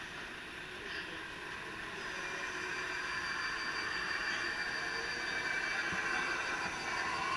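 Radio-controlled scale model trucks running, a steady whine of small electric motors and gears that grows louder from about two seconds in.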